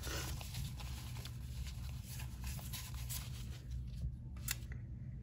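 Faint rustling and light ticking of paper sticker sheets being handled, over a steady low hum.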